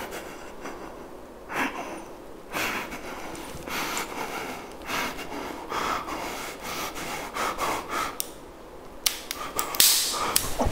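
A man breathing heavily, with panting and gasping breaths coming about once a second. A loud, sharp sound comes near the end.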